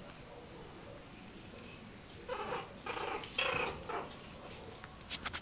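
Bolonka Zwetna puppies crying out in rough play: a quick run of about four short, high-pitched yips a little over two seconds in, then a few sharp taps near the end.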